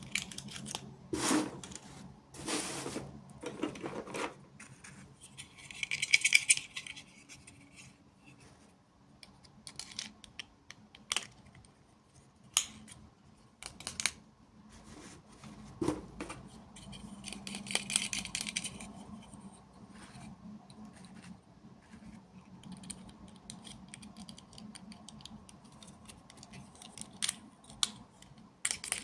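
Hands handling small plastic toys and packaging: scattered clicks and taps, with two longer crinkling, rattling passages, about six seconds in and around eighteen seconds.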